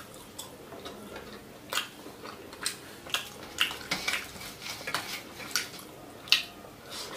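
Close-up eating sounds: chewing and lip smacks on a mouthful of rice and fish eaten by hand, a string of short sharp clicks about one or two a second. Fingers scrape and tap a stainless steel plate while picking up rice.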